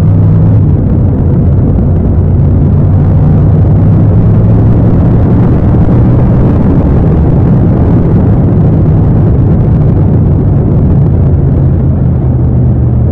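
Yamaha MT-07's parallel-twin engine running steadily while riding, a loud low engine note held at fairly even revs.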